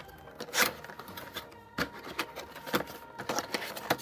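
Cardboard box being handled and opened by hand: irregular light taps, scrapes and rustles of the box flaps, with a louder scrape about half a second in.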